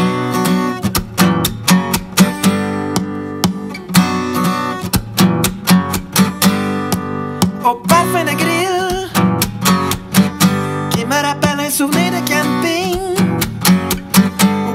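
Acoustic guitar strumming chords in a steady rhythm through an instrumental break. A wordless, wavering melody line joins over the strumming about eight seconds in.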